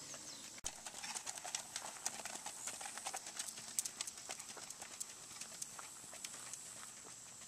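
Hoofbeats of a shod Racking horse moving at the rack, its quick four-beat gait, on a grass and dirt track, the beats growing fainter over the last couple of seconds.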